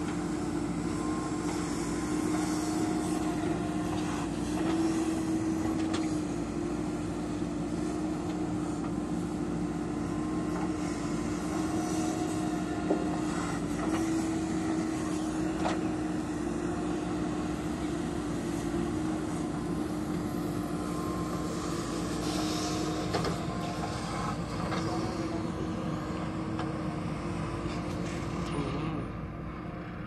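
JCB 3DX backhoe loader's diesel engine running steadily under digging load, its note stepping up a little now and then, with a few short knocks. It gets quieter about a second before the end.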